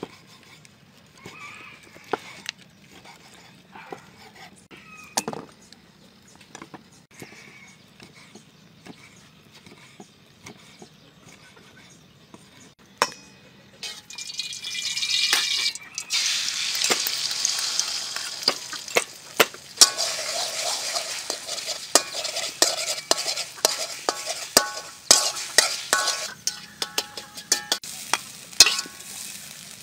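A knife chopping on a wooden board in a few scattered taps. About halfway through, a hot pan starts sizzling loudly as egg is stir-fried, and a metal spatula clatters and scrapes against the pan over the sizzle.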